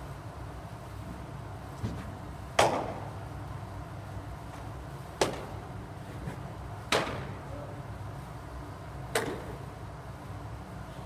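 Pitched baseballs landing with sharp pops, four loud ones a couple of seconds apart plus a few fainter knocks, each ringing briefly in the echoing indoor cage hall.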